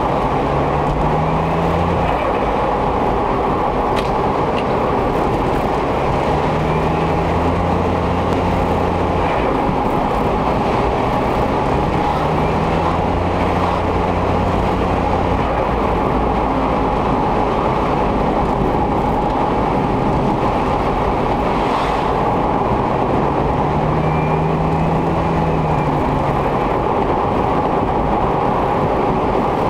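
Suzuki Every Wagon DA64W's small turbocharged engine and road noise while driving, the engine note rising and falling several times, with a few faint high chirping glides. A squealing like this on throttle lift-off is, by the owner's account, likely turbo blow-back noise from a faulty air bypass valve or 3-way solenoid valve.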